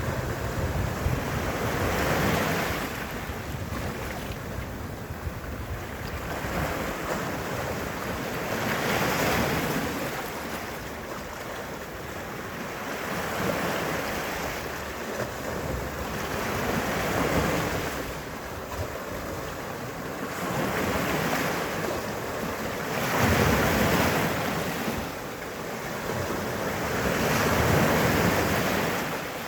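Sea waves breaking and washing against a rocky shore, the surf swelling and ebbing about every three to four seconds.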